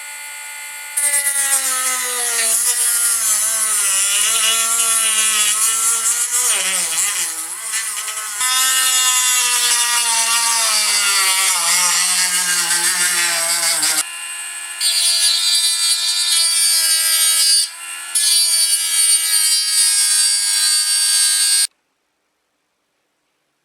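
Small power tool cutting through a plastic RC car bodyshell. Its motor whines steadily, and the pitch sags and wavers as the cut bites, with a couple of brief breaks. It stops abruptly near the end.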